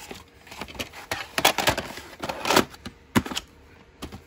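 Plastic VHS clamshell case and cassette being handled: a quick run of clicks, knocks and short scrapes as the tape goes into the case and the case is closed and set down, with one last click near the end.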